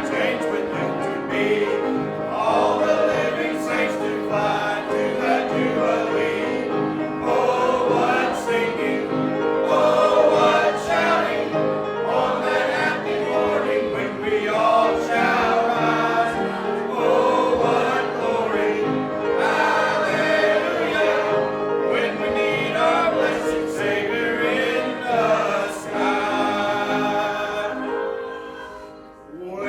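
Church congregation singing a hymn together in many voices, the sound dropping away briefly near the end, as at a break between lines.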